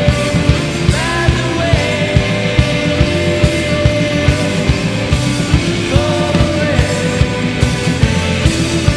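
Alternative rock band playing live: electric guitars, bass and a drum kit keeping a steady beat, with sung vocals.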